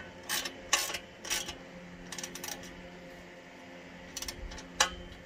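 Scattered metallic clinks and taps from handling a steel log-splitter work table and its mounting hardware, with a sharper knock near the end.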